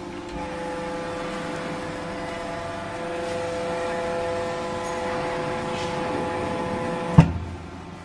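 Enerpat VB30S vertical baler's hydraulic pump running with a steady whine, growing a little louder as it presses the bale. About seven seconds in it ends with a single sharp knock, and the whine stops.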